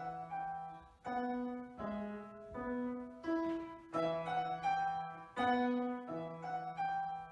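Piano playing a simple, even-paced tune, a note or chord struck about once a second and left to ring out.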